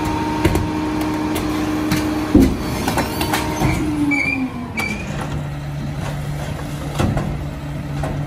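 Mack LR rear-loader garbage truck's diesel engine running at raised revs, with a loud clank about two seconds in; around the middle the engine winds down to a lower idle, with further knocks and a couple of brief squeaks.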